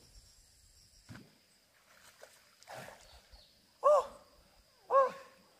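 A dog barking twice, short loud barks about a second apart, starting about four seconds in.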